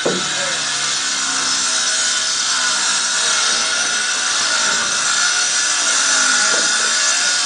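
A loud, steady grating scrape that starts suddenly: the steel spiral slide section in its wooden frame being dragged across the flatbed trailer's deck.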